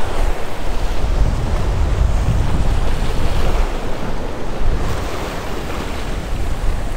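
Surf breaking and washing against the boulders of a rock jetty, with wind buffeting the microphone as a steady low rumble.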